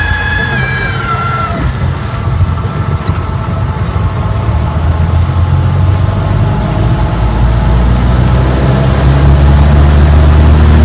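Light propeller aeroplane's engine and propeller heard from inside the cockpit at low power during the landing rollout, with rumble from the runway and airflow. A high whine drops in pitch and fades in the first two seconds. The low engine drone grows louder and steadier over the last few seconds.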